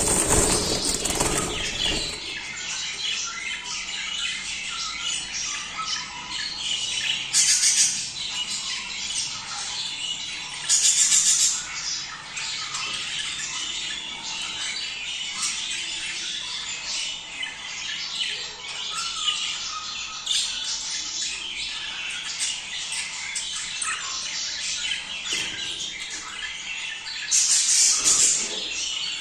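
A flock of budgerigars chattering and warbling continuously, with squawks and chirps, the breeding-season chatter used to encourage budgies to mate. Short, loud, rustling bursts of noise break in at the start, twice in the first half and once near the end.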